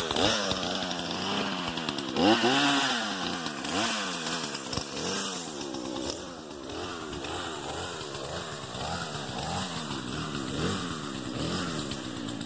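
Jonsered two-stroke chainsaw running, its throttle revved up and down again and again in quick blips. It grows somewhat quieter after about five seconds.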